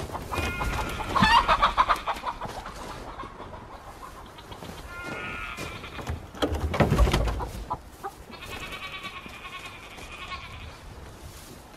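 Chickens clucking and squawking in several drawn-out calls, with hay rustling as it is stuffed into their shelter. A louder rustle comes about seven seconds in.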